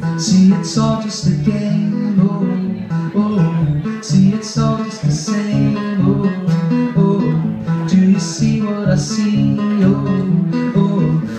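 Acoustic guitar strummed in a steady rhythm, an instrumental passage between sung lines of a live song.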